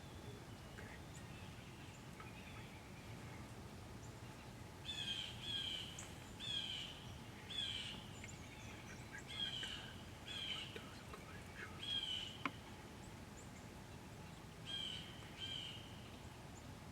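A bird calling, a run of short chirping notes repeated about once a second over a steady low background hiss, with one sharp click about three-quarters of the way through.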